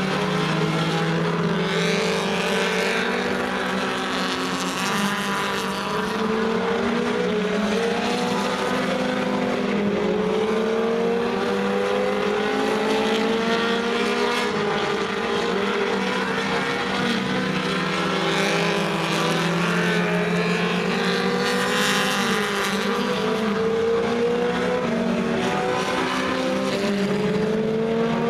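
Several four-cylinder Super Stock dirt-track race cars running together around the oval, a continuous blend of engines at high revs. Their pitch climbs again and again as cars accelerate out of the turns, several engine notes overlapping at once.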